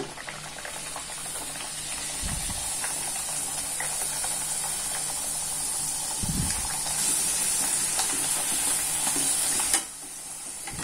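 Puris (wheat-flour dough rounds) deep-frying in hot oil: a steady sizzle with fine crackling, which drops off abruptly near the end. Two soft low thumps are heard, about two and six seconds in.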